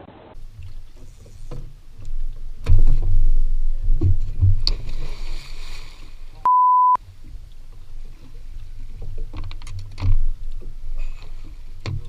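Low rumbling noise with scattered knocks and thumps, cut by a half-second steady 1 kHz bleep about six and a half seconds in, with all other sound muted, as a censor bleep does.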